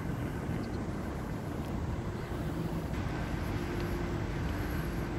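Steady low rumble of vehicle noise, with a faint steady hum that grows a little clearer about three seconds in.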